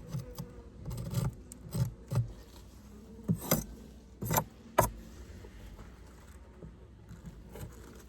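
Wooden hive frames knocking and scraping against the hive box as they are shifted, a string of sharp clunks over the first five seconds, with bees buzzing faintly throughout.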